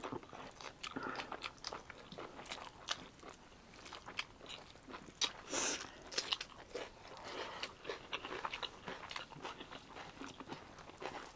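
Close-up eating sounds of a person chewing and biting pork curry with rice: many small irregular wet clicks and smacks, with one louder one about five and a half seconds in.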